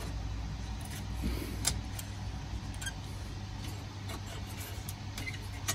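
A few light clicks and knocks from hands handling a server's PCIe riser cage, over a steady low hum.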